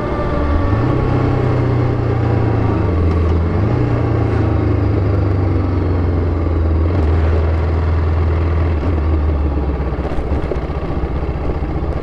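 TVS Apache RR 310's single-cylinder engine running under way, its note stepping up about a second in and settling lower in steps over the second half, over a steady rush of wind and road noise.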